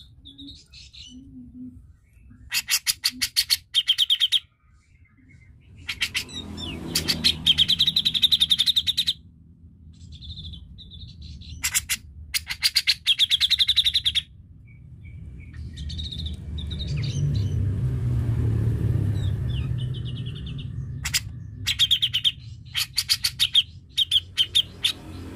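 Grey-cheeked bulbul (cucak jenggot) calling in repeated bouts of rapid, chattering notes, each bout a second to three long. A low rumble swells in the background for a few seconds in the second half.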